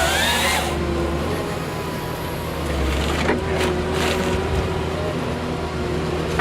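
Heavy machine's engine running steadily, with a rising whine near the start and a few sharp knocks about three to four seconds in.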